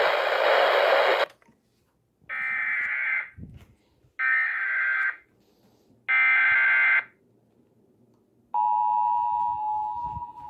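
Radio hiss that cuts off about a second in, then three Emergency Alert System SAME header data bursts, each about a second of buzzing digital warble, and near the end the steady two-tone EAS attention signal begins: the opening of an emergency alert.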